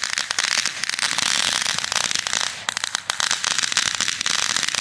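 Ground fountain firework spraying sparks: a steady hiss packed with rapid, dense crackling pops.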